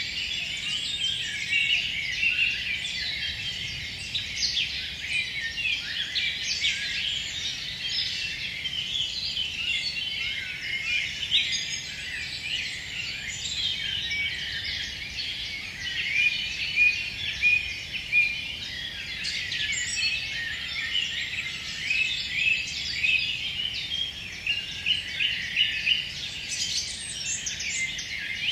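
A chorus of several songbirds singing at once in a forest at dusk, many overlapping high chirps and phrases with no pause.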